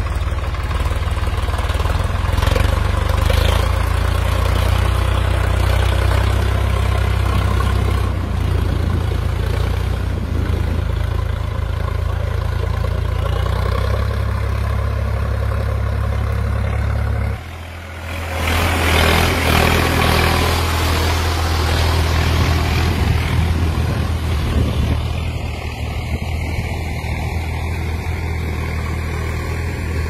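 Farm tractor's diesel engine running steadily with a low drone. A little over halfway through the sound breaks off sharply, then the engine comes back with a louder hiss over it.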